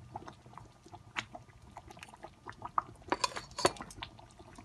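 Thick jaggery-and-rice pudding simmering in a steel pan while a steel spoon stirs it: scattered wet pops and clicks, coming thicker and louder about three seconds in.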